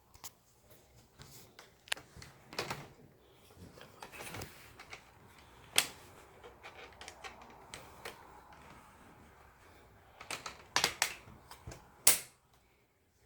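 Plastic clicks and snaps as a flat screwdriver pries the display bezel's glued clips loose on a Dell Inspiron 14 3421 laptop. Irregular sharp clicks with gaps between them, the loudest about six seconds in and about twelve seconds in, with a quick cluster just before the last.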